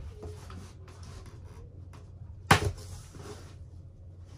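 Rubbing and handling noise as animatronic parts and packaging are unpacked by hand, with a sharp click about two and a half seconds in and another right at the end.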